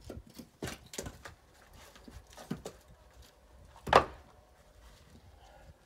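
Wood-splitting work on a chopping block: light wooden knocks and clatter of split firewood pieces, then one loud wooden knock about four seconds in.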